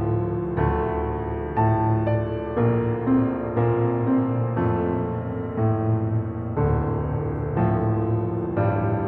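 Background piano music, sustained chords changing about once a second.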